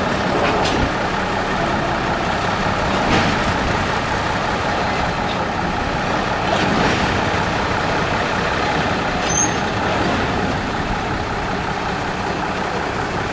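Small diesel switcher locomotive running steadily as it moves slowly past.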